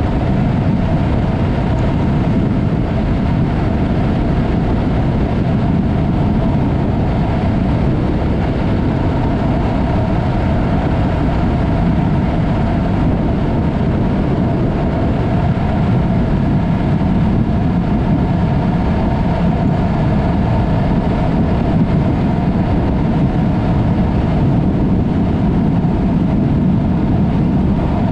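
Yamaha MT-03 parallel-twin motorcycle with a Mivv aftermarket exhaust running steadily at cruise, mixed with a heavy low rush of riding wind.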